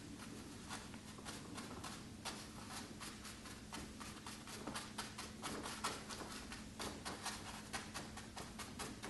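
Chinese ink brush dabbing and stroking on xuan paper mounted on a board: an irregular run of short, faint scratchy taps, several a second, over a steady low hum.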